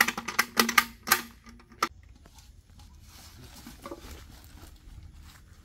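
Crackling rustle of large banana leaves being handled and laid over a pit, which stops after about a second, followed by one sharp click, then faint rustling.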